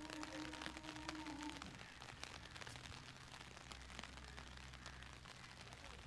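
Light rain pattering, with many scattered drop ticks. A faint steady hum with a couple of overtones runs underneath and fades out about a second and a half in.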